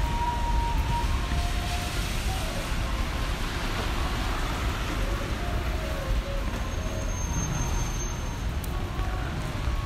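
Steady city street noise: traffic and a low rumble, with a faint tune in the background.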